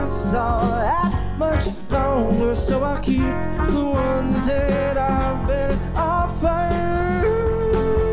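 Live Americana band playing an instrumental passage: drums, bass, acoustic and electric guitars and trumpet together. A long held note comes in about seven seconds in.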